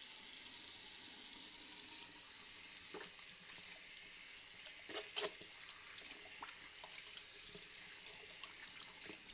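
Kitchen tap running steadily into the sink, a constant hiss, with a few faint knocks, the loudest about five seconds in.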